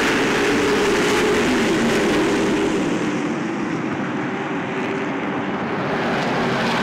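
A pack of pavement late model race cars running at racing speed, their V8 engines a loud, steady drone. It eases slightly around the middle and builds again near the end.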